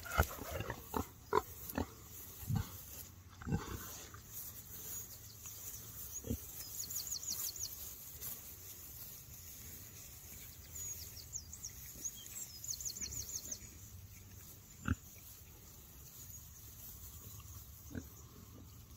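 Pigs grunting close by while grazing: a quick run of short grunts in the first few seconds, then a few single grunts spaced well apart.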